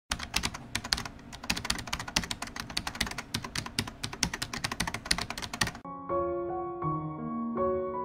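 Rapid computer-keyboard typing, a dense run of clicks for nearly six seconds that stops abruptly. Piano music then starts, with notes changing about every half second.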